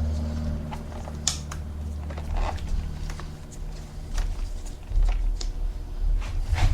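Scattered light clicks and knocks of parts being handled, with a few low thumps near the end, over a steady low hum.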